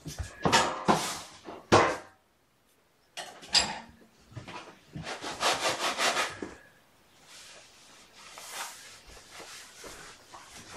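Cat litter being scooped and scraped in a plastic litter pan: a series of gritty scraping and rubbing strokes, with a fast rasping run about five seconds in, then fainter rustling.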